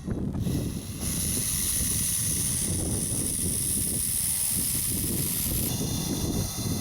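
Bull snake hissing defensively: one long, loud hiss of air forced out through its glottis, coming in about a second in and easing off near the end. Wind buffets the microphone underneath.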